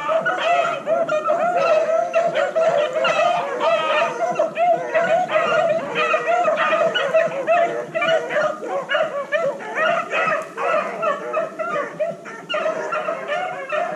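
A pack of beagles baying as they run a cottontail rabbit's trail, many overlapping calls several a second without a break.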